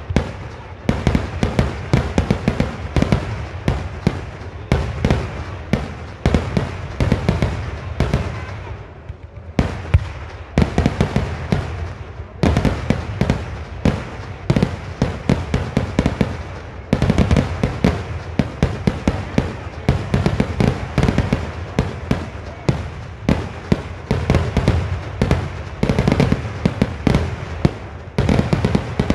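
Kerala temple vedikkettu fireworks going off in a dense barrage: rapid, continuous bangs and crackles, several a second, with short lulls around ten and twelve seconds in.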